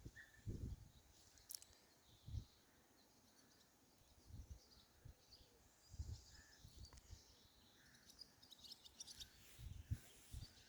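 Near silence: faint, scattered bird chirps and occasional low rumbles of wind on the microphone.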